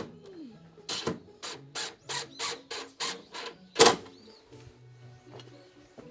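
A hammer striking repeatedly, about three blows a second, the last blow the loudest, then stopping, over background music.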